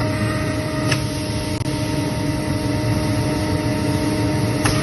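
Freshly repaired machine-tool spindle motor running steadily on test: a constant hum with a whine of several steady tones. It runs smoothly, without fault. Two light clicks sound, about a second in and near the end.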